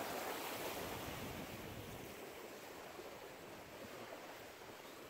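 Steady rushing of lake waves washing against a rocky shore, with some wind, easing off slightly toward the end.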